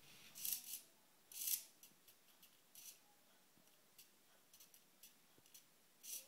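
Hobby RC servo whirring in short bursts as its gears swing the horn to new positions under transmitter stick control: about four quick high-pitched buzzes, with a few faint ticks between them.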